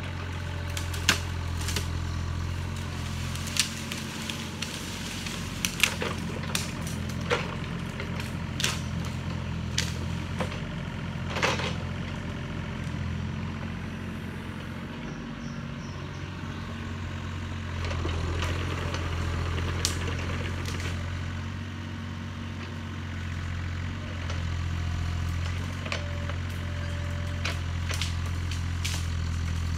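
Yanmar ViO35 mini excavator's three-cylinder diesel engine running steadily under load while its bucket rips out brush, with frequent sharp cracks and snaps of branches breaking, most of them in the first ten seconds or so. The engine runs louder in the second half.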